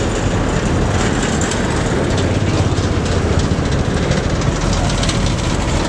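Steady traffic noise from a moving car: a low road and engine rumble, with heavy lorries driving close alongside.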